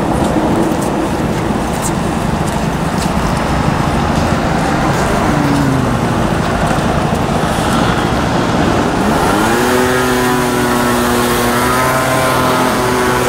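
Steady road traffic noise, with a vehicle engine rising in pitch about nine seconds in and then holding a steady note.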